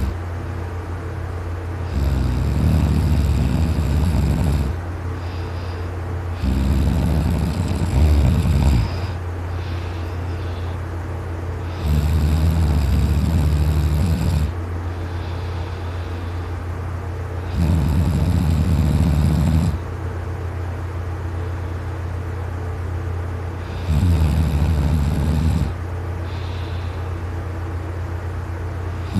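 A person snoring very loud in deep sleep while lying on their side. There are five long snores of two to three seconds each, about every five to six seconds, over a steady low hum.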